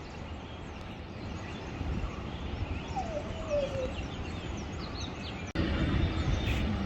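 Steady rushing of a large waterfall with many small birds chirping over it, and a single lower, falling call about three seconds in. The rush jumps louder suddenly a little before the end.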